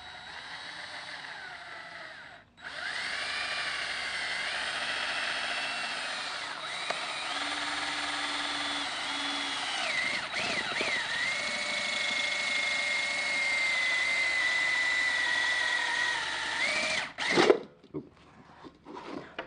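Cordless drill boring a large hole through a PVC pipe end cap. The motor whines steadily, its pitch dipping and wobbling as the bit bites into the plastic, with a brief stop a couple of seconds in. Near the end the drill stops, followed by a sharp knock and some light clatter.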